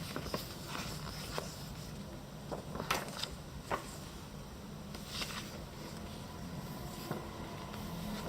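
Paper rustling and small handling clicks as printed magazine pages and photo cards are handled, over a steady low hum.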